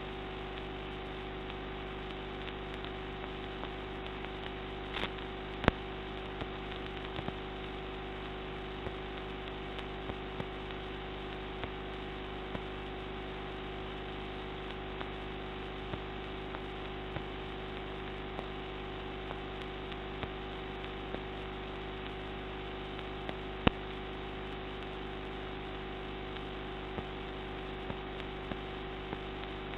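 A steady electrical hum with hiss underneath, broken by two brief sharp clicks, one about six seconds in and one about twenty-four seconds in.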